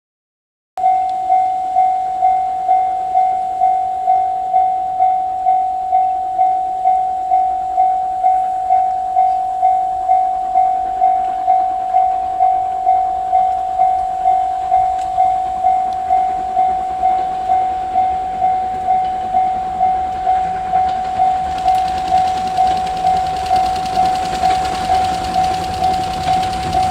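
Japanese railway level-crossing warning bell, switching on about a second in and ringing a steady single-pitched ding about twice a second. Near the end the noise of an approaching train builds up underneath it.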